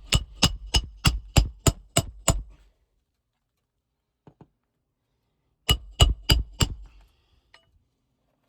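Roofing hammer driving nails into asphalt 3-tab shingles with quick, ringing metal-on-metal strikes: a run of about nine fast blows, a pause, then four more blows about six seconds in.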